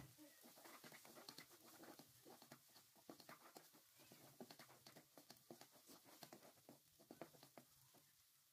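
Faint, irregular clicks and scrapes of a plastic slotted spatula stirring thick chili spice paste around a non-stick wok.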